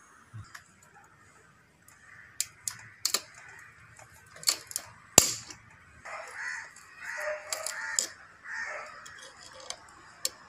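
Scattered sharp metal clicks and taps as steel power-steering rack parts are handled and worked with pliers. The loudest click comes about five seconds in.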